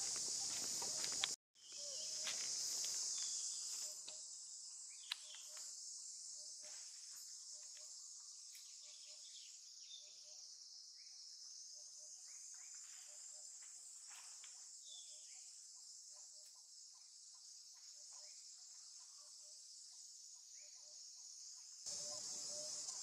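Steady high-pitched drone of insects, with faint short chirps scattered through it; the sound cuts out for a moment near the start.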